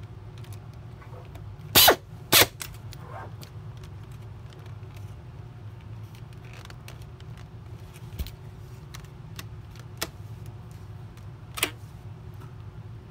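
Pneumatic screwdriver driving a small screw into the plastic holder retainer, in two short hissing runs about two seconds in. Later come a few light clicks of plastic parts being handled, over a steady low hum.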